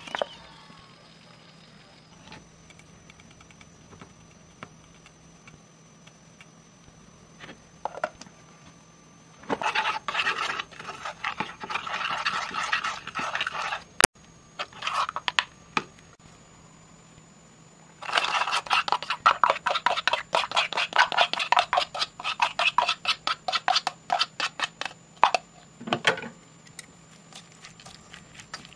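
Two runs of quick, rhythmic scraping and tapping strokes: the first comes about a third of the way in and lasts a few seconds, the second is longer and runs through much of the second half. A faint steady hum and a thin high whine sit underneath.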